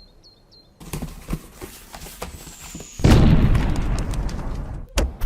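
Produced sound effects: a rattling clatter of sharp clicks with a thin falling whistle, then about three seconds in a sudden loud boom that fades over about two seconds, followed by two sharp cracks.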